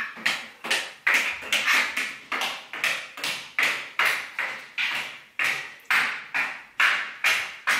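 A child's high-heeled shoes clacking on a hard floor in a steady, even rhythm of about two and a half steps a second.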